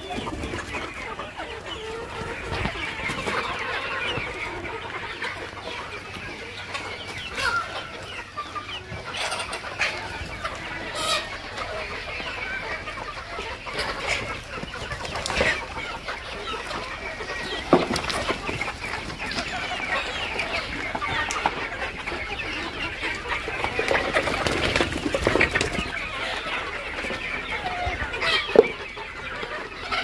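A large flock of local desi chickens, hens and roosters, clucking together in a continuous mass of chatter, with a few sharper single sounds standing out, the loudest near the end.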